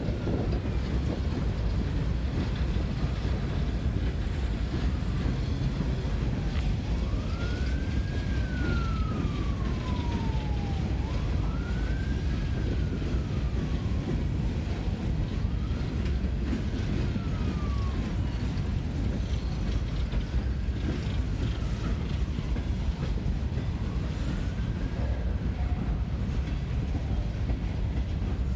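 Slow CSX freight train's cars rolling past with a steady low rumble, while a faint siren wails over it, rising and falling about every four seconds from about seven seconds in until near the end.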